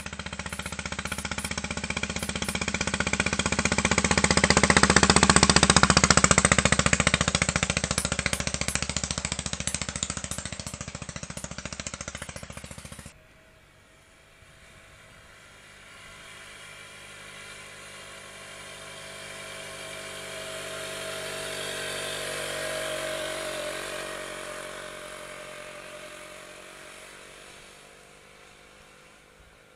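Historic motorcycles riding past uphill one at a time. The first engine grows louder to a peak about six seconds in, then breaks off suddenly about thirteen seconds in; a second, quieter motorcycle then comes closer, peaks in the second half and fades away.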